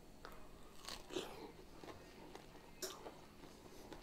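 A man biting into and chewing a slice of homemade pizza: faint mouth and chewing sounds with a few short crisp bites, the clearest about one second and three seconds in.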